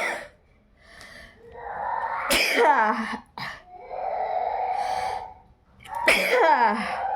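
A person sneezing loudly over and over: a sharp sneeze right at the start, then two more at about two and a half and six seconds in. Each of the later two is led up to by a drawn-out voiced breath and breaks into a sudden blast with a cry that falls in pitch.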